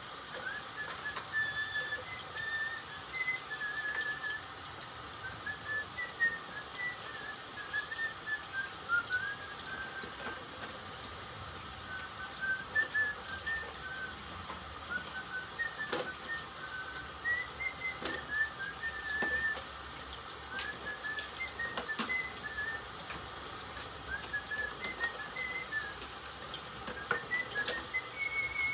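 Someone whistling a tune in short notes that step and slide up and down in phrases, with a few clinks of dishes.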